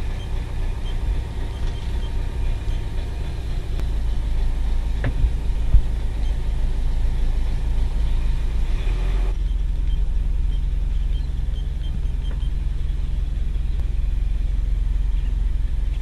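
Sailboat's inboard engine running steadily as the boat motors in under autopilot, a low rumble. About nine seconds in the sound changes, the higher hiss dropping away while the low rumble goes on, and there is a single knock about six seconds in.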